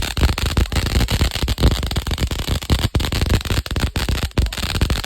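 Popcorn-effect firework fountain (Vulkan) burning, giving a dense, continuous rapid crackling of many small sharp pops.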